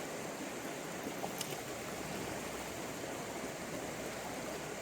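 Steady rush of flowing river water, the Shenandoah's current running past.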